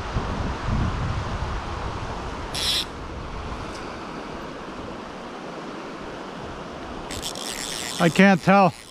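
Steady rush of a shallow trout stream running over a riffle, with wind rumbling on the microphone for the first few seconds. A short hiss comes about two and a half seconds in, and a quick run of four short pitched rising-and-falling sounds comes near the end.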